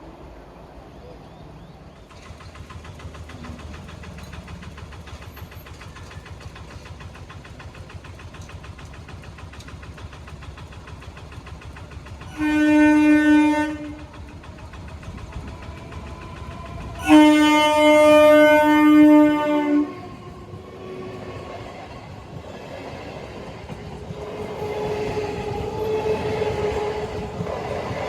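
Vande Bharat Sleeper Express train approaching with a building rumble, then sounding its horn as a warning at a level crossing: a short blast about twelve seconds in and a longer one about five seconds later. Afterwards the train's running noise rises as it passes.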